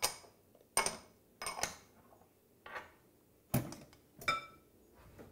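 Small glass prep bowls clinking against each other and the countertop as they are picked up and set down: about seven sharp clinks, the one near the end ringing briefly.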